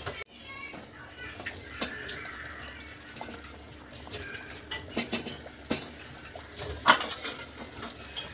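A wooden spatula stirring thick masala in a metal cooking pot, with scattered knocks and scrapes against the pot; the loudest knock comes about seven seconds in.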